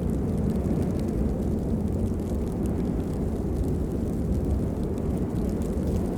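Steady rain, a deep even rushing with faint scattered drop ticks above it.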